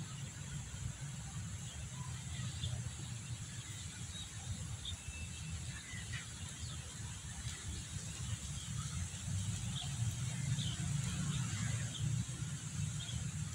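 Outdoor background: a steady low rumble, a steady high hiss and scattered short high chirps, with no calls from the cats.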